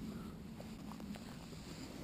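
Faint low rustling of footsteps through forest undergrowth, with a few small ticks.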